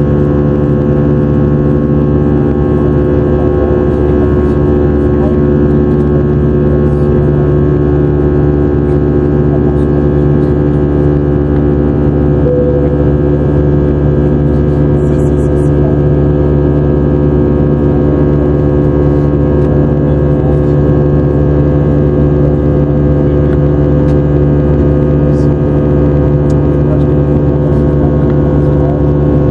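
Jet airliner cabin noise from an Airbus A320-family easyJet jet in flight: a steady, loud engine drone with a low roar and several steady humming tones, unchanging throughout.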